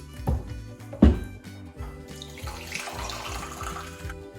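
Water pouring into a blender jar of oats, a hissing splash in the second half. Two thumps come earlier, the louder about a second in.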